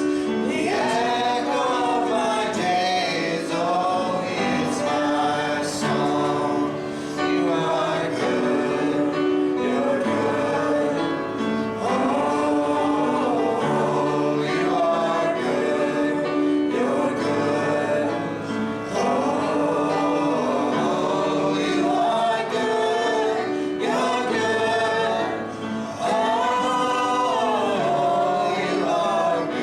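Worship song sung by a group of voices in a church service, with sustained chords held underneath.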